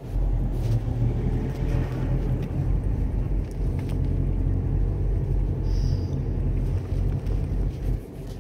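Steady low rumble of a boat's engine heard on deck, with wind on the microphone.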